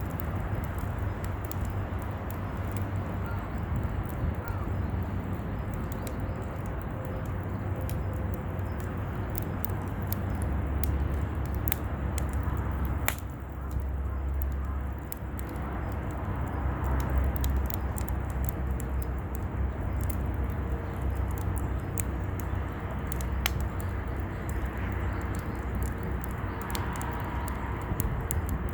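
Wood campfire crackling, with many scattered sharp pops over a steady low rumble.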